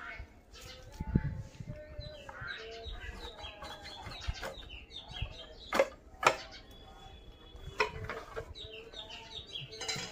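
Birds calling and clucking in the background, with many short chirps. Two sharp knocks come about six seconds in, half a second apart.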